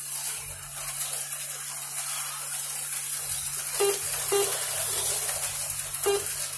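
HO-scale slot cars running laps on the track: a steady high whirring hiss, with a few short pitched blips.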